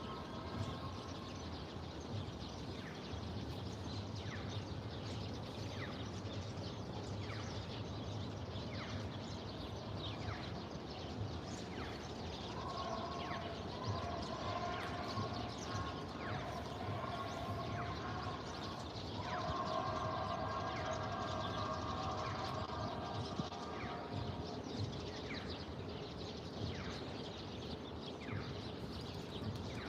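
City-park ambience: a steady background rush with birds chirping in short calls about once a second. A steady held tone comes in twice in the middle, for about five seconds each time.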